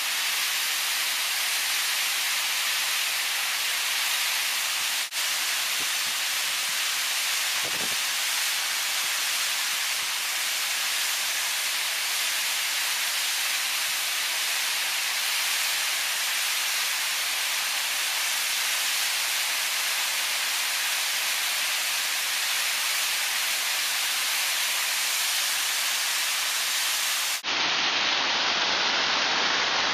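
Waterfall: a steady rushing hiss of water falling and splashing down a rock face close by. It drops out briefly about five seconds in and again near the end, after which it sounds duller.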